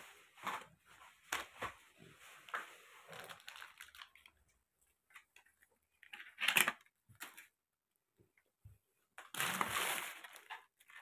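Irregular rustling and crinkling of plastic packaging being handled, with two louder bursts, one about six and a half seconds in and a longer one about nine seconds in.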